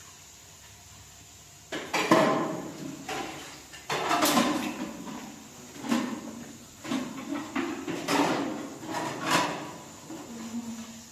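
A series of irregular knocks and clatters, like objects being handled and set down, starting after a quiet second or two; some of the knocks ring briefly.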